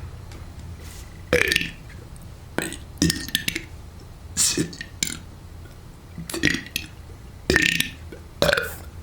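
A person belching letters of the alphabet: a string of short, forced burps, roughly one a second.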